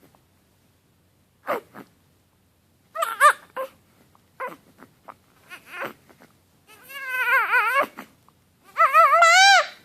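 Infant fussing: short grunts and whimpers, building to longer, high, wavering cries in the last three seconds.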